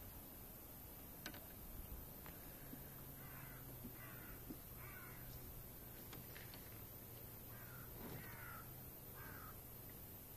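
A bird calling faintly: a run of three harsh, caw-like calls about a second apart, then two more a few seconds later.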